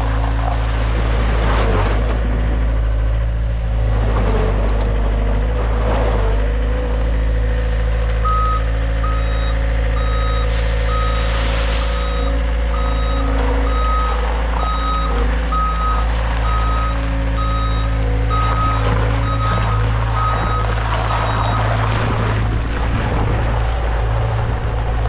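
2019 John Deere 320G skid steer's engine running steadily. A third of the way in its backup alarm starts beeping, just under once a second for about thirteen seconds, the sign that the machine is in reverse. A short hiss comes partway through the beeping.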